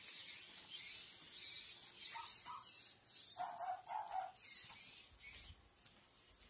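Toy robot dog giving short electronic barks and yips, the clearest pair about halfway through, over a steady high hiss.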